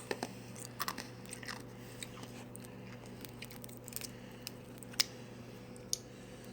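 Ice being bitten and chewed: scattered sharp crunches and cracks, the sharpest about four and five seconds in.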